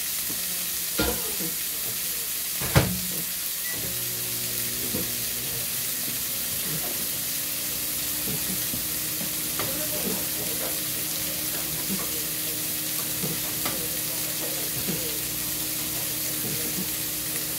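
Steak frying in a nonstick skillet, a steady sizzle. Two sharp knocks sound about one and three seconds in, the second the louder.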